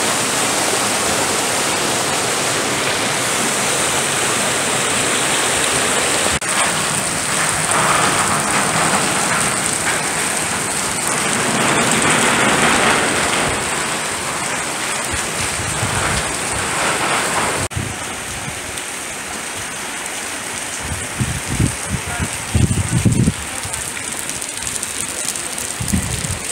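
Heavy tropical-storm rain pouring down steadily, mixed with the rush of floodwater running along the street. The sound changes abruptly twice, and a few low gusty rumbles come near the end.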